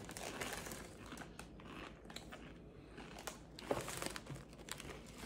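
Hand-cooked O'Donnell's sea salt crisps being crunched and chewed, with the crisp bag crinkling, as faint irregular crackles.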